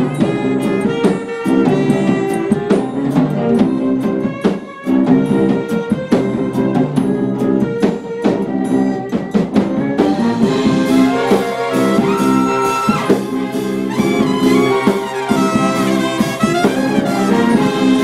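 Trumpet playing a melody over a string and percussion ensemble in rehearsal. Sharp percussion strikes punctuate the first half, and long held trumpet notes stand out from about ten seconds in.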